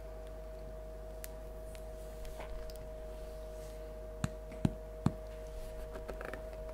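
Faint, scattered crackling from the crust of a freshly baked loaf of bread cracking as it cools, the bread "singing", over a steady hum. Three louder sharp clicks come about four to five seconds in.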